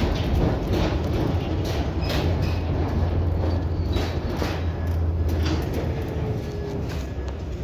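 V3A-93M articulated tram running along street track, heard from inside: a steady rumble of wheels on rails with scattered clicks and a low hum that is strongest mid-way, easing off slightly near the end.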